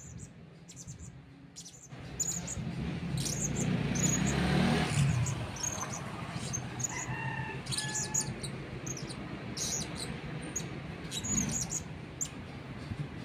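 Blue-crowned hanging parrot (serindit) chattering: a string of short, high chirps, irregular and at times several a second, over a low background rumble.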